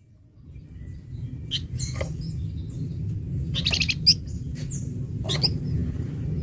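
Caged flamboyan songbird singing short bursts of chirps and quick trills, a burst every second or two, with one sharp note about four seconds in. A steady low rumble runs underneath.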